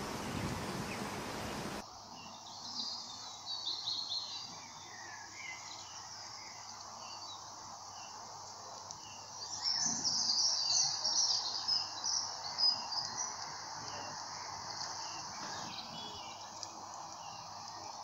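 A steady rushing background noise cuts off about two seconds in. Then small birds chirp and twitter, with a busy run of high chirps about ten seconds in, and a faint short chirp repeats about once a second underneath.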